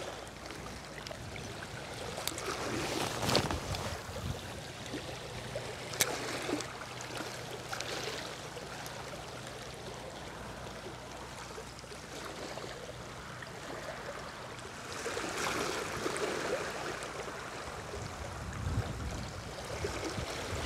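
Small waves washing against the rocks of a seawall, swelling and easing in a rough noise, with a sharp click about six seconds in.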